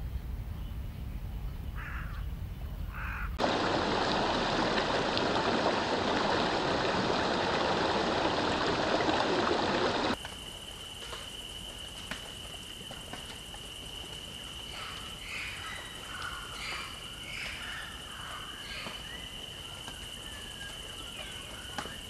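Nature sound clips joined one after another: a low rumble with a few short calls, then about seven seconds of loud rushing water-like noise that cuts off abruptly, then a quieter stretch with a steady high-pitched whine and a run of short bird chirps.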